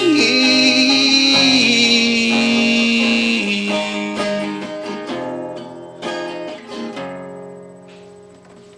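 Acoustic guitar ending a song: held chords, then a few last strums about five to seven seconds in, and the final chord ringing out and fading away.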